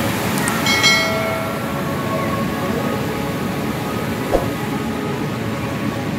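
Steady rushing and splashing of a musical fountain's water jets, with a short chime about a second in and a single sharp click past four seconds.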